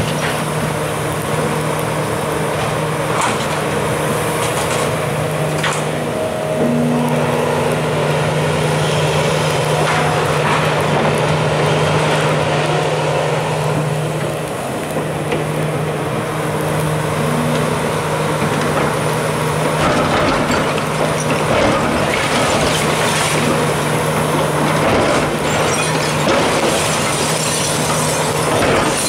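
Hitachi tracked excavator's diesel engine running steadily under load while its demolition grapple works the building, with occasional knocks and crunches of breaking masonry.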